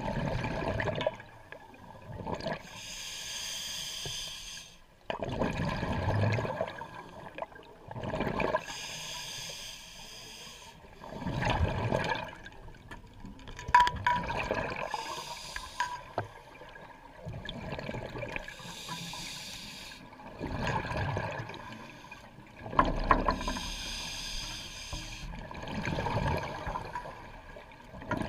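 Scuba diver breathing through a regulator underwater: hissing inhalations through the demand valve alternate with bubbling exhalations, in slow breaths repeating every few seconds.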